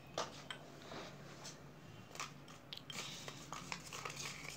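Folded paper chits being shuffled between cupped hands: faint, irregular paper rustling and crinkling with a few small crisp clicks.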